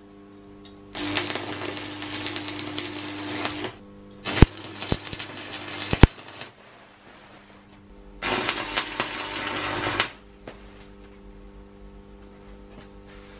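MIG welder arc crackling and spitting as beads are run on steel, in two stretches: one starting about a second in and lasting nearly three seconds, another from about eight seconds lasting two. A few sharp pops come between them, and the welder's steady electrical hum runs underneath.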